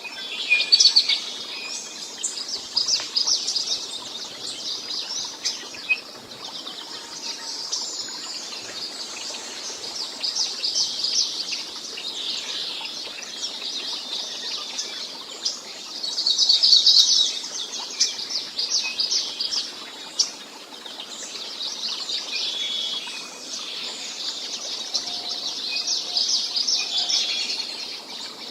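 Birds chirping and trilling continuously, with louder bursts of rapid trills about a second in and again about halfway through.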